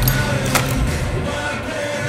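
Background film-score music with held low notes and soft sustained tones, and a single sharp tick about half a second in.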